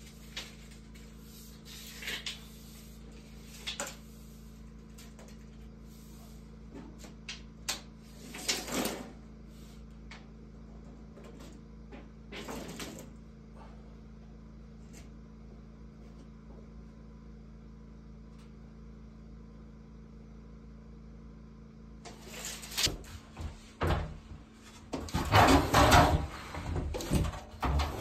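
Steel tape measure being pulled out and run back, a few short rattles and clicks over a steady low hum. Near the end, a run of loud wooden knocks and clunks as a long board is handled.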